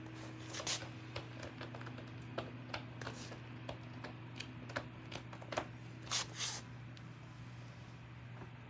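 A steady low hum, with a scatter of light clicks and scuffs through the first two thirds. The clicks are loudest about half a second in and in a cluster around six seconds.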